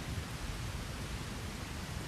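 Steady rain falling as an even hiss, over a deep low-pitched undertone.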